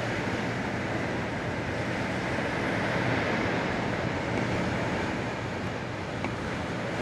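Strong storm wind rushing steadily through hillside trees just before a thunderstorm's rain, with some wind buffeting on the microphone.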